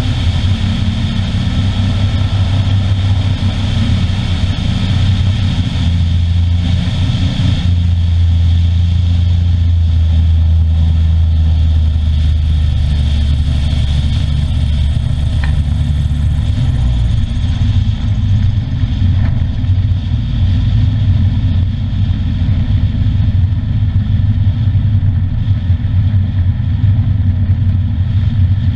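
DAR Solo ultralight trike's engine running steadily with wind rush on the wing-mounted microphone as the trike comes in to land and rolls along the runway; the engine note changes around halfway through.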